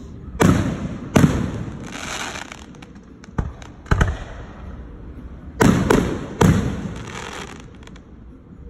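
Aerial fireworks going off: about six sharp bangs, one weaker than the rest, each trailing off in a rolling echo.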